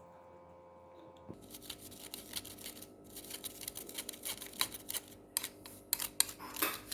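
Ground spice powder being sieved: a run of irregular light clicks, taps and scrapes of a kitchen sieve, starting about a second in and growing busier toward the end.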